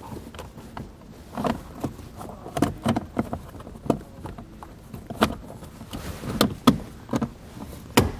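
A plastic lower dash panel being slid up and pushed into place by hand. Irregular scraping and rubbing of plastic on plastic, with a series of sharp clicks and knocks, most of them in the second half.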